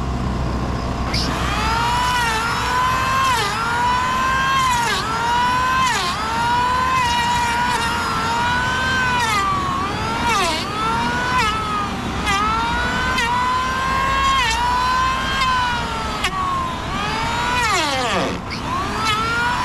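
Small engine of a powered post-hole auger revving up about a second in, then running at high speed with its pitch repeatedly sagging and recovering as the auger bites into the soil. Near the end it bogs down deeply, almost stalling, before picking up again.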